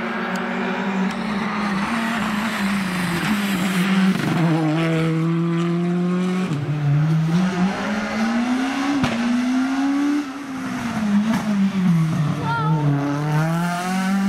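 Rally cars driven flat out, their engines revving high, the pitch climbing and then dropping sharply at each gear change, several times over, with a couple of sharp cracks. Near the end a car slides through a corner on the tarmac.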